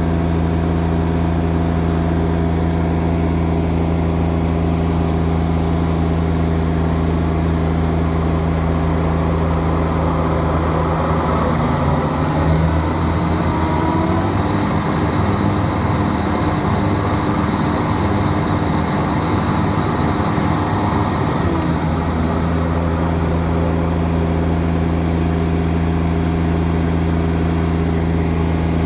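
Kubota GR2110 lawn tractor's diesel engine running steadily. About eleven seconds in the mower deck is engaged and the blades spin up with a rising whine, a delayed surge to full speed that the owner takes for slippage in the PTO. Around twenty-two seconds the whine falls away and the engine returns to its steady note.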